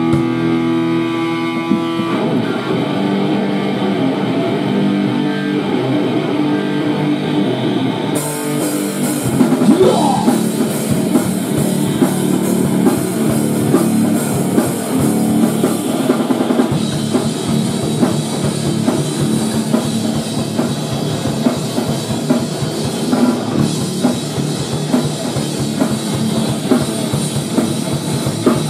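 Rock band playing an instrumental passage on distorted electric guitar, bass and drum kit. The drums and guitars fill in together after a short opening, and the music grows louder and brighter about eight seconds in.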